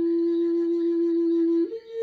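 Big bamboo flute holding one long steady low note, then a short break and a step up to a higher note near the end.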